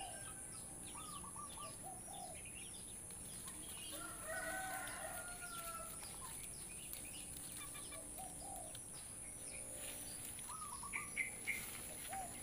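Birds calling outdoors: short chirping calls repeating every second or two, with a rooster crowing once about four seconds in, over a steady high hiss.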